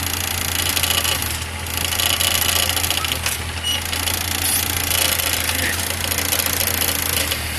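Mini excavator engine running steadily, a low hum under a broad hiss.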